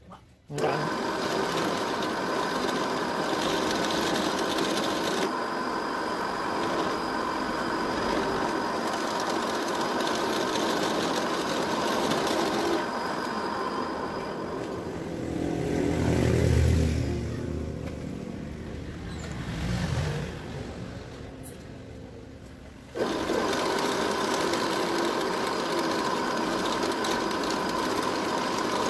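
Bench drill press motor running steadily while its bit drills into a piece of white plastic. The hum dies away after about fifteen seconds and comes back suddenly about eight seconds later.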